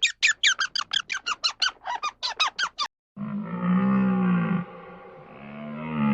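Two animal calls one after the other: a rapid run of short, high squeaks, about six a second, that cuts off nearly three seconds in, then a deep, drawn-out animal call heard twice.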